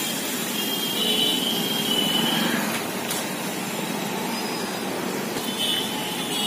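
Steady street traffic noise: a continuous wash of vehicles passing on the road.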